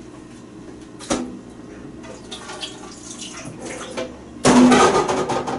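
Water running, as when measuring out more water from a tap. About four and a half seconds in, a sudden loud noise cuts in and fades over about a second.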